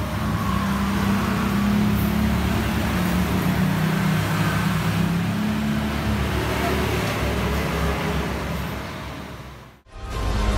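A motor vehicle engine running steadily with a low rumble, fading out just before the end.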